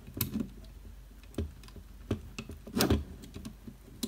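Small clicks and knocks of thin pliers and fingers working a cable connector loose from under a 3-inch floppy drive's circuit board, with a few louder taps about a quarter second in, midway and around three seconds in.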